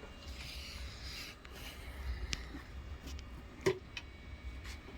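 A brief rubbing scrape, then a few sharp clicks and taps as the reconed speaker is handled, over a steady low hum.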